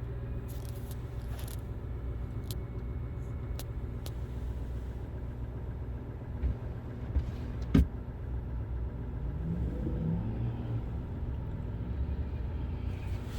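GMC Sierra 3500 AT4 pickup's engine running steadily with a low hum, getting a little louder in the second half. There is one sharp click a little past the middle.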